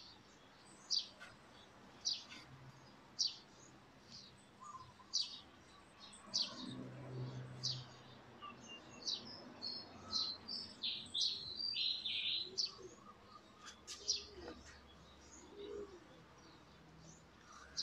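Small birds chirping: a short high chirp repeating about once a second, with a busier run of varied chirps a little past the middle.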